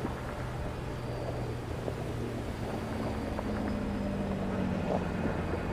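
A steady engine drone. A second, higher tone joins about three seconds in and drops away near the end, with a few faint clicks over it.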